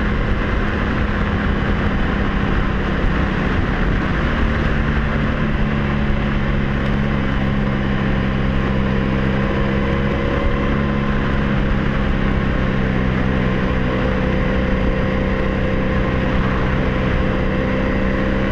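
Honda Magna 700 V4 motorcycle engine running at a steady road speed under heavy wind rush on a helmet-mounted microphone; the steady engine drone settles in about four seconds in. The bike's fuel pump is failing.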